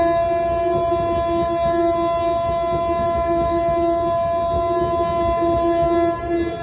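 Indian Railways locomotive air horn sounding one long unbroken blast, with a lower note fluttering on and off beneath the steady main tone. The rumble of passing coaches runs underneath.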